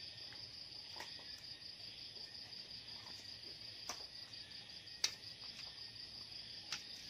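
Insects chirping in a steady high-pitched drone, with a few sharp clicks: one about a second in, one near four seconds, a louder one about five seconds in, and one near the end.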